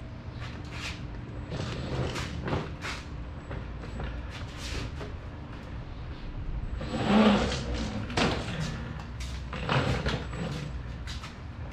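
Irregular knocks, clunks and rattles over a low steady hum, from the Mototec electric skateboard fitted with a home-welded steel tiller steering column, moving and being handled on a concrete garage floor.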